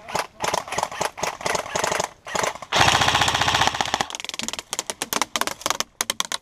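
Airsoft guns firing: a rapid run of single shots, then a full-auto burst of about a second roughly three seconds in, then more quick single shots.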